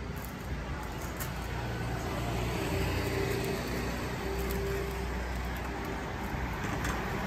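Street traffic: a steady rumble of passing cars, swelling slightly in the middle.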